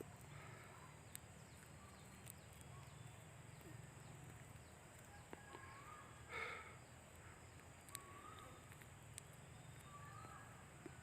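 Faint bird calls: short chirps repeating every couple of seconds, with one harsher call about six seconds in, over a low steady hum.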